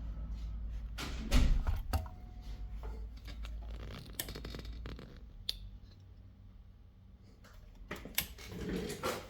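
Handling noises on a workbench: scattered clicks, knocks and scrapes, the loudest knock about a second in, over a low hum that fades out about five seconds in.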